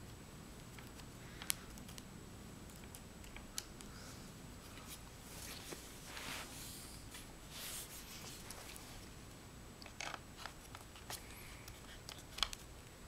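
Faint scattered clicks and a few short scraping swishes of a small Phillips screwdriver turning the screws of an Alienware 17 R4 laptop's bottom cover, with hands handling the case.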